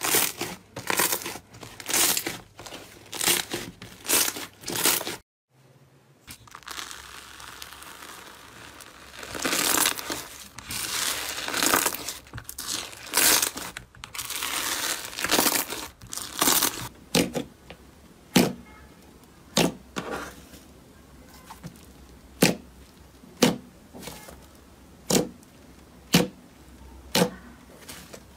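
Hands squishing and kneading slime. First comes a run of crackly squelches about twice a second, then a short silence. Next come wet swishing swells as a hand stirs a bowl of slime, and last come sharp pops about once a second as a finger presses air pockets in a pink slime.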